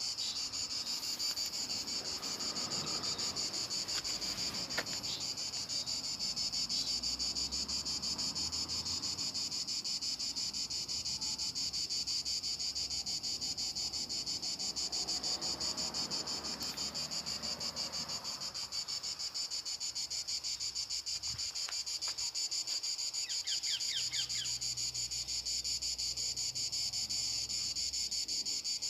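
Insects trilling: a steady, high-pitched, fast-pulsing chorus like crickets or cicadas.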